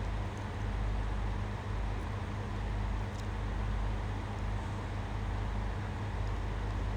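Steady low mechanical hum with an even hiss over it and a couple of faint clicks.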